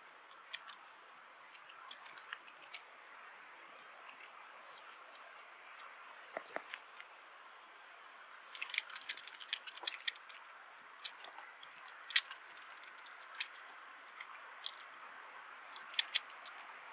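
Irregular sharp clicks and light rattles from a bicycle being ridden, over a faint steady hiss; the clicks come in small clusters, busiest about nine to ten seconds in and again near the end.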